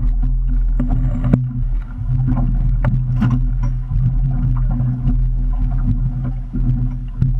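Motorboat engine running at a steady low idle, a constant low hum, with scattered clicks and knocks over it.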